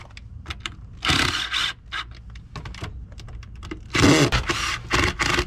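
Ryobi cordless drill driving screws into a weathered wooden board, in two runs: one about a second in and a longer one about four seconds in. Scattered clicks and knocks from handling the drill and board come between the runs.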